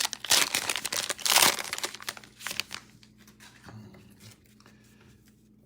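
Plastic foil wrapper of a Chronicles football trading-card pack being torn open and crinkled. The sound is loudest in the first second and a half, then dies away to a few faint rustles.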